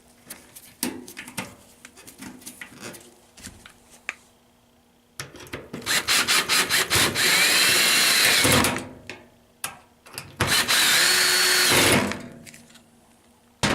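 Cordless drill-driver driving screws into a washing machine's sheet-metal top panel: two runs of the motor, a longer one about five seconds in and a shorter one about ten seconds in, with a whine that rises and falls. Before them come light clicks and taps as the screws are handled and started by hand.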